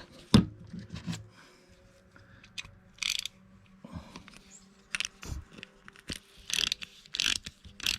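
Small metal clicks and scrapes of a hand tool snugging down a fastener during reassembly of a Briggs & Stratton Quantum lawn mower engine's carburetor. The clicks are scattered and irregular, with a sharp one just after the start and a busier run in the second half.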